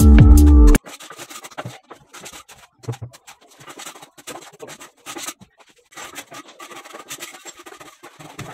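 Background music cuts off about a second in. After that, faint, irregular scraping and rubbing of a hand tool on fresh cement as a ferro-cement cupboard's surfaces are finished.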